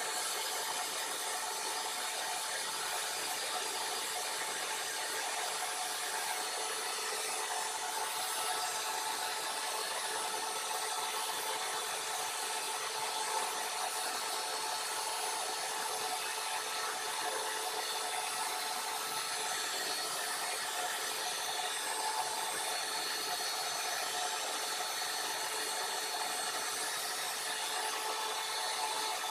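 Steady rushing hiss with a faint steady whine: a coal fire burning under forced draft around the crucible of a small melting furnace.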